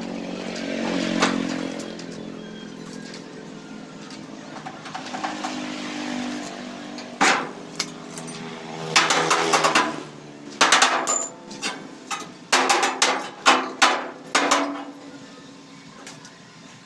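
A motor vehicle engine running steadily, then from about seven seconds in quick clusters of hammer strikes on metal, several a second, stopping near the end.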